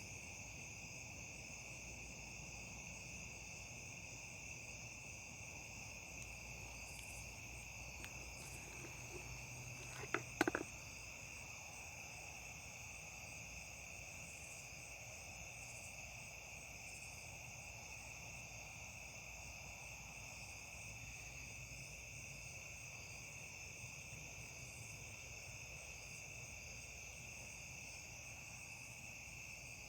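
Chorus of crickets trilling steadily at a high pitch. About a third of the way in, a quick cluster of two or three short, sharp sounds stands out louder than the chorus.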